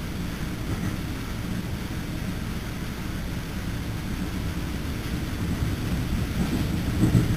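Steady low rumble of wheels and running gear heard inside an NJ Transit MultiLevel passenger car moving at speed, with a louder thump near the end.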